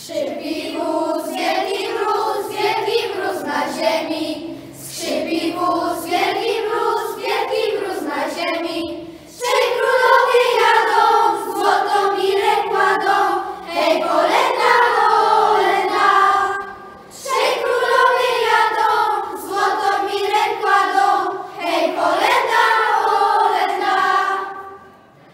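A group of children singing a Christmas carol together in unison, with no instruments heard. They sing in phrases with short breaths between, growing louder about nine seconds in.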